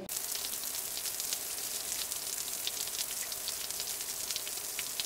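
Steady rain falling on a flat rooftop and splashing into standing water: an even hiss sprinkled with many small drop ticks.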